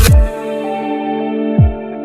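Electronic background music: the drum beat drops out just after the start, leaving held synth chords, with one deep falling bass hit about one and a half seconds in.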